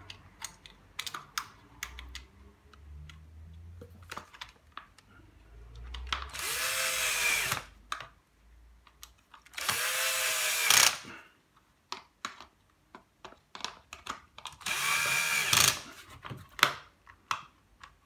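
Cordless drill-driver driving screws into a vacuum cleaner floor tool's metal sole plate in three short runs, each about a second long, the motor speeding up and then slowing down. Light clicks and taps of screws and parts being handled come between the runs.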